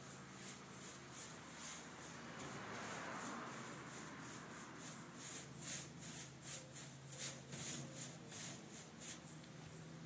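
Paintbrush swept in quick repeated strokes through wet glaze on a garage door to draw faux wood grain: a soft swish about twice a second, stopping near the end.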